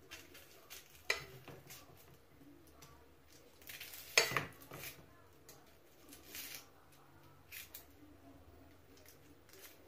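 Kitchen utensil clinking and scraping against dishes, a handful of separate knocks with the loudest about four seconds in.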